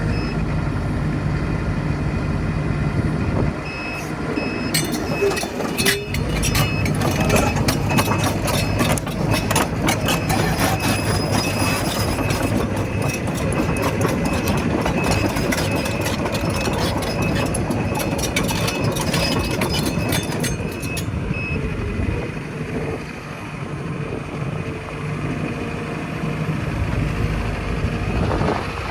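Diesel engine of a Case CX235 excavator running. From about five seconds in until about twenty seconds in, dense metallic clanking and a high squeal sound over it.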